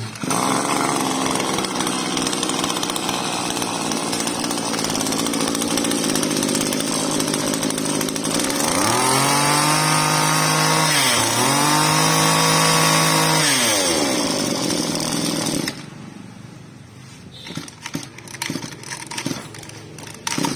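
Small two-stroke engine of a straight-shaft brush cutter running, then revved up twice in a row about halfway through, each rev held for a couple of seconds. It stops abruptly, leaving a few faint clicks.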